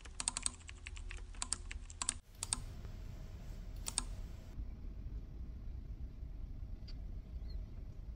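Typing on a computer keyboard: a quick run of key presses for about two seconds, as a Wi-Fi password is typed in. Then a couple of separate single clicks, over a low steady hum.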